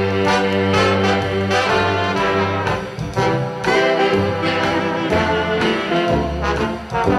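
Dance-band music: trombones and trumpets lead a swing-style instrumental passage with the band behind them. No singing. It is a recording played back through a tube amplifier.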